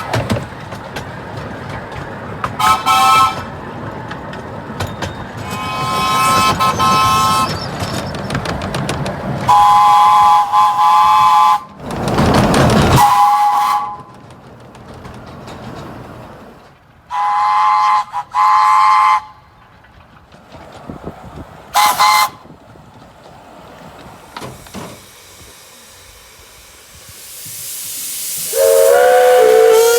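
Steam locomotive whistles blowing in a series of short and longer blasts, each a steady chord of several notes, over the rumble of a running train. About twelve seconds in comes a loud rush of hissing steam, and near the end a lower-pitched whistle starts.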